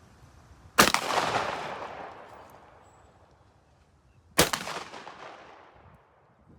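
Two shotgun shots at clay targets, about three and a half seconds apart. Each sharp report is followed by a long, fading echo, and the first shot is the louder.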